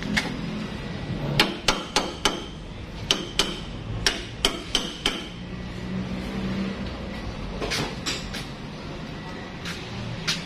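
Irregular sharp metallic taps and knocks of tools striking metal, some with a brief ring. They come in a quick run over the first five seconds, thin out, then return near the end.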